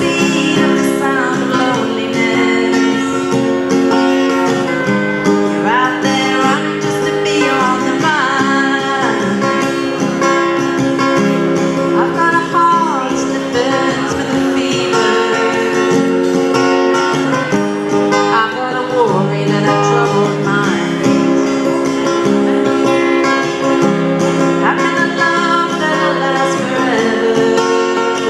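Music: steadily strummed acoustic guitar chords in a country-style song, with a melody line above them that slides and bends between notes.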